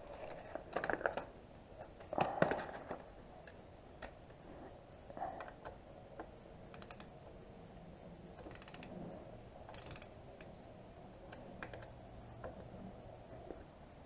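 Ratcheting torque wrench being worked on a motorcycle wheel bolt: quiet, scattered clicks and short runs of rapid ratchet clicks, with the wrench set to 12 foot-pounds.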